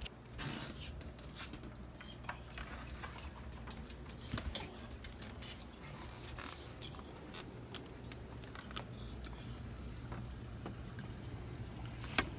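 Scattered clicks, knocks and rustles over a steady low hum, typical of a phone being handled and moved about.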